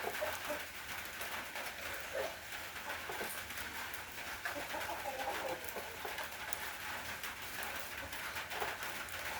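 Steady rain hiss, with birds giving short calls now and then over it.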